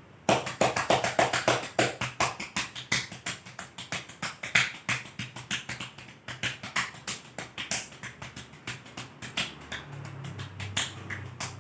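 Cupped hands clapping rapidly and repeatedly on a patient's back, about five strikes a second: chest percussion in chest physiotherapy, done to loosen phlegm.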